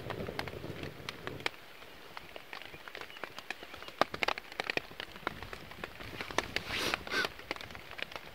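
Rain falling on a tarp overhead, heard as many irregular sharp ticks and taps over a faint hiss, mixed with the small crackle of a young kindling fire being fed thin sticks. About seven seconds in there is a brief, louder rustle.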